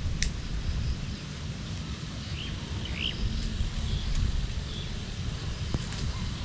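Wind buffeting the microphone as a steady low rumble, with a few short bird chirps about two and a half and three seconds in and a single sharp tick near the start.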